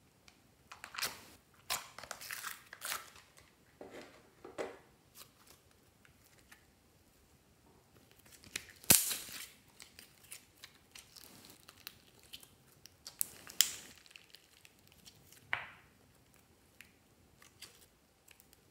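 White fluffy slime being pulled from a plastic tub and stretched by hand: irregular sticky crackling and tearing sounds as it peels and pulls apart. One sharp click about nine seconds in is the loudest sound.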